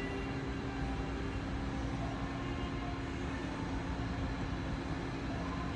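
Steady mechanical background hum: one constant low tone over an even rumbling noise.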